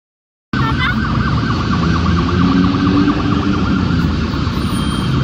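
Emergency vehicle siren wavering rapidly, heard over the low rumble of city road traffic, starting abruptly about half a second in.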